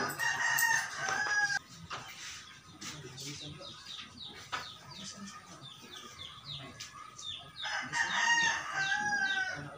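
A rooster crowing twice, each crow lasting about a second and a half and falling in pitch at the end. There is faint high chirping in between.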